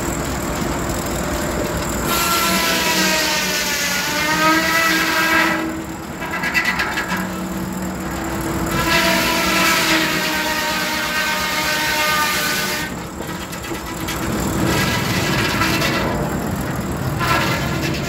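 Large steam-tractor-driven circular sawmill blade cutting through a log: a loud, rough whine whose pitch sags and wavers as the blade takes the load, in several stretches of a few seconds each with short breaks between, over the clatter of the carriage.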